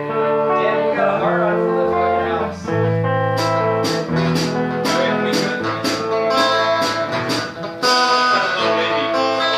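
Live rock band playing in rehearsal: guitars and bass sounding sustained chords over a moving bass line, with sharp percussion hits about twice a second through the middle.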